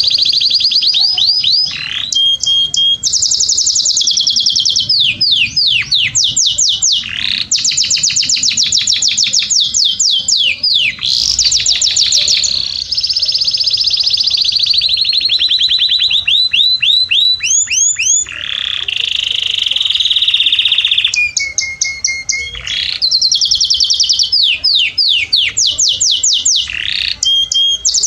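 Canary singing loud, fast song: rapid trills of repeated notes, sweeping rolls, and held whistles, each tour lasting a second or two before changing to the next.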